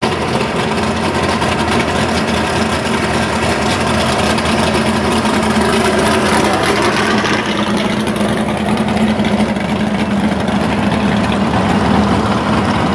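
Drag race cars' engines idling loud and steady as the cars roll slowly past.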